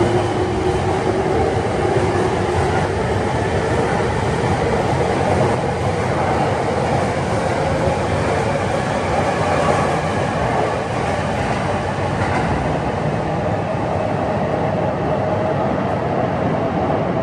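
Rinkai Line 70-000 series electric commuter train running, loud, with its traction motors whining in tones that slowly rise over steady wheel-on-rail noise.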